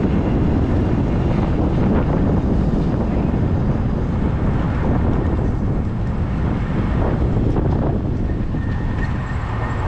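Steady rush of wind buffeting the microphone of a moving e-bike, with road and traffic noise beneath it.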